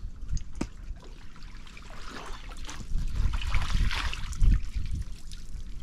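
Water splashing and streaming out through the mesh of a crab pot as it is hauled up out of shallow creek water, with a dull thump about four and a half seconds in.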